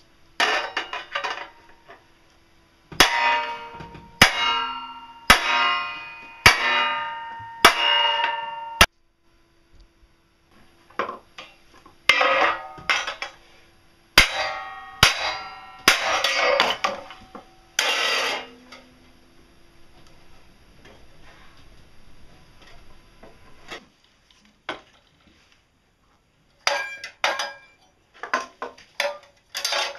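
Hammer blows on steel plate, each a sharp clang that rings on and dies away. A run of six blows a little over a second apart, then after a short pause another run of blows, with shorter metal clinks near the end.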